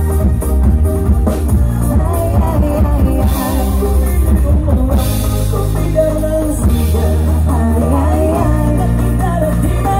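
Live band music: singing over electric guitars, a heavy bass line and a drum kit with cymbals, played loud through the stage sound system.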